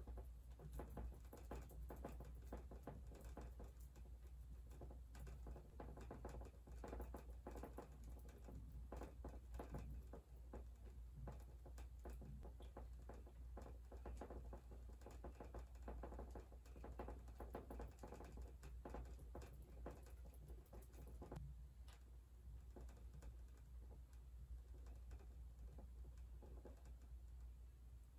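Faint, quick, irregular tapping of a paintbrush dabbing paint onto a stretched canvas, over a low steady hum.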